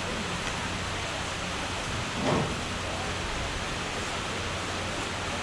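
Steady outdoor background hiss with a faint low hum. A brief louder low swell comes about two seconds in.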